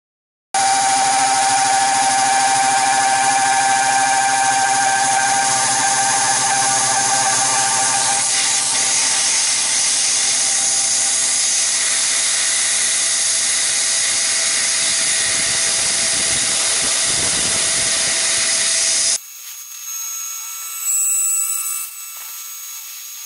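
Tormach PCNC 1100 CNC mill thread-milling an internal thread in brass: loud, steady spindle and cutting noise that starts abruptly half a second in, with a high steady tone that fades about eight seconds in. Near the end the sound drops suddenly to a quieter, thinner whine.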